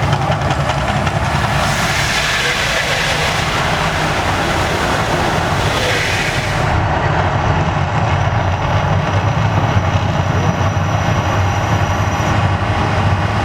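Deep, steady rumble from the Mirage volcano attraction's eruption effects, with a rushing noise over it. The highest part of the hiss drops away about halfway through.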